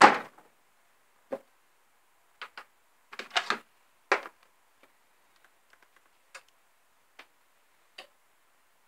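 Irregular sharp clicks and knocks: a cluster of louder ones in the first four seconds, then a few fainter ones spaced about a second apart, over a faint steady hiss.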